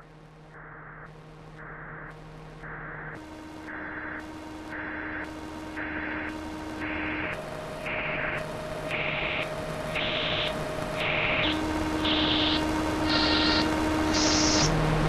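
Electronic soundtrack build-up: pulses of hissing noise, about two a second, climbing steadily in pitch and growing louder, over held low drone tones that shift every few seconds.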